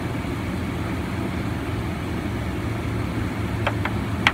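Steady low hum of an idling car engine, with a few short clicks near the end.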